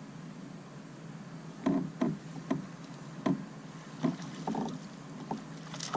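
Irregular knocks and bumps on a plastic fishing kayak, about seven in the space of a few seconds, over a steady low background.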